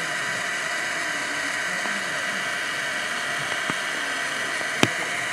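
Steady outdoor background hiss with a steady high tone running through it and faint distant voices, broken by a single sharp click near the end.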